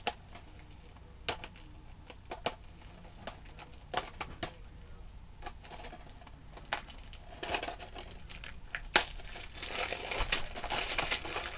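Plastic shrink wrap on a DVD case being picked at and peeled off by hand: scattered sharp crinkles and ticks, becoming a denser run of crinkling near the end.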